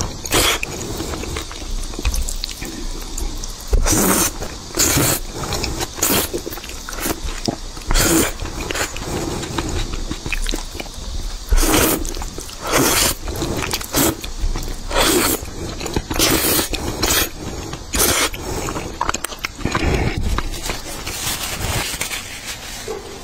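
Close-miked slurping and chewing of thick noodles in a sticky red sauce, with sharp, wet slurps every second or two.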